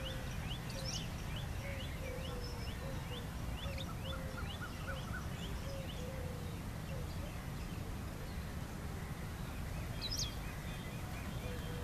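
Birds calling over a steady low outdoor rumble. A bird repeats short down-slurred chirps about twice a second through the first half, along with lower repeated notes. About ten seconds in comes one sharp high call, given by the white-browed wagtail on the rock.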